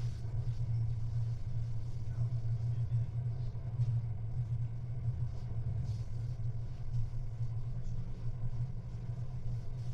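Interior running noise of a Merseyrail Class 777 electric train in motion: a steady low rumble, with a few faint clicks.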